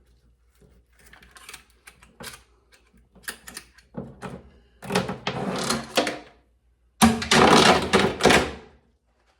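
Bicycle chain rattling and clicking in a chain scrubber as it is worked and handled. Scattered clicks come first, then two louder bursts of clatter about five and seven seconds in, each lasting a second or two.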